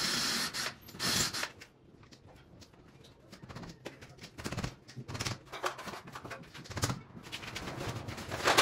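A power tool runs and stops about half a second in, followed by a short burst of noise. Then come scattered clicks, knocks and scrapes of hand work, with a louder knock at the very end.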